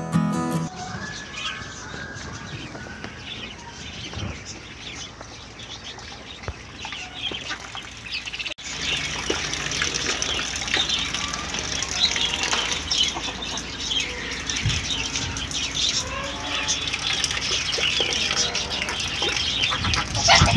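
Country chickens clucking and calling around a coop, mixed with many short, high chirps. The sound steps abruptly louder about eight seconds in.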